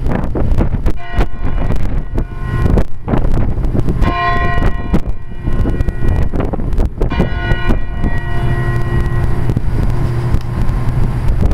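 A church bell rings three strokes, about three seconds apart, each ringing out for a second or two. Wind buffets the microphone underneath.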